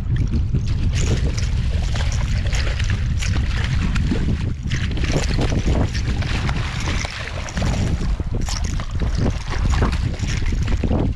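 Wind buffeting a GoPro's microphone in a steady low rumble, with irregular splashing from a hooked striped bass thrashing at the surface as it is reeled in close to the shore.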